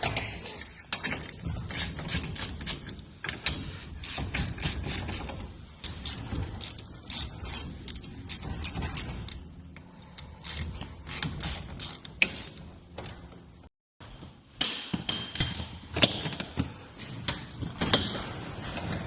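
Hand tools working on garage door hardware: irregular metallic clicking and rattling, like a ratchet being worked. The sound drops out briefly about two-thirds of the way through, then carries on.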